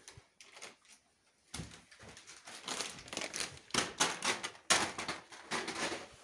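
Rapid, irregular knocking, scraping and rustling of someone clambering over old wooden boards and beams, with the camera rubbing against things; it starts about a second and a half in and grows louder.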